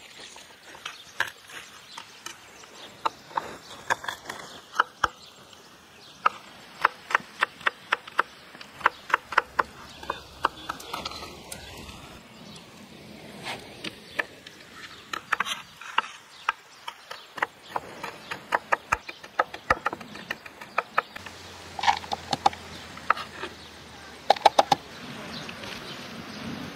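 A kitchen knife chopping garlic cloves on a wooden cutting board: quick runs of sharp knocks with short pauses between them.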